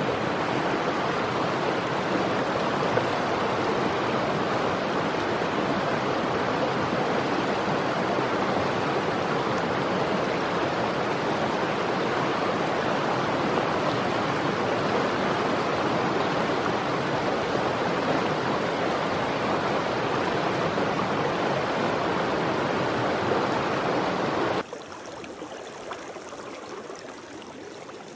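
Mountain stream rushing over rocks and riffles in a steady, even rush. About 25 seconds in it cuts abruptly to a much quieter, softer flow of shallow water.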